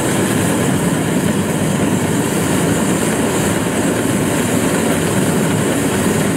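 Kubota DC-93 rice combine harvester running steadily under load as it cuts and threshes rice: a loud, even diesel engine and machinery noise with a hiss over it.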